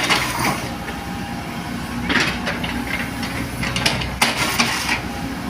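Excavator's diesel engine running steadily, with short rushing, hissing bursts on top three times.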